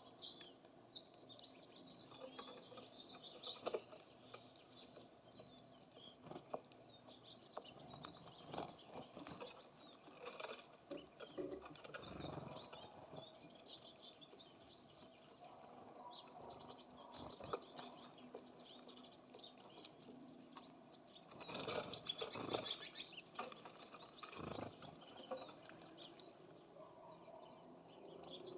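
Small songbirds at a feeder giving short, high chirps scattered throughout, with a few wing flutters and light taps, the loudest flurry about three-quarters of the way in.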